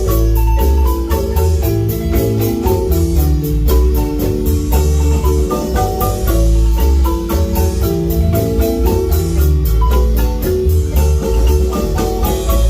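Marimba band playing a tune: quick mallet notes over a strong bass line and a fast high percussive pulse.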